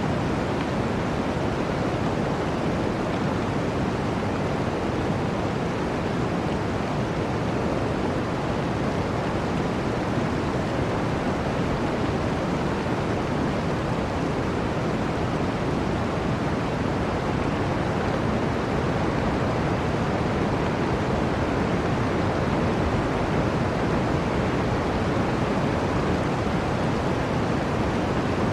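Flowing water rushing steadily, an even deep-toned wash with no breaks or single splashes.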